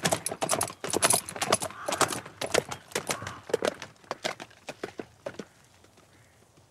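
A horse trotting, drawing a two-wheeled gig: a quick run of hoof clops that fades as it pulls away and dies out about five and a half seconds in.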